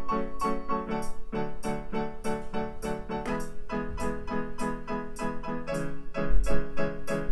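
Yamaha arranger keyboard playing back a recorded three-part pattern: a repeated piano-like chord figure at about four notes a second, moving to a new chord about three seconds in.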